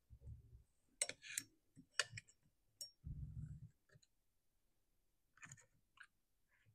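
Faint, sparse clicks and ticks of a small screwdriver tip picking at packed dirt around a chainsaw's flywheel and housing, with two soft low bumps from handling the saw on the bench.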